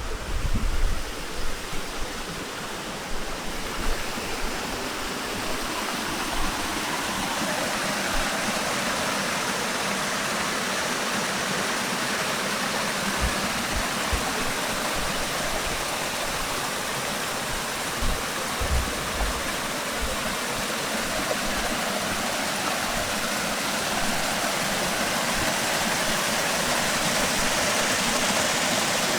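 Spring-fed stream of clear water flowing and splashing steadily, swelling a little after the first few seconds, with a few low bumps near the start.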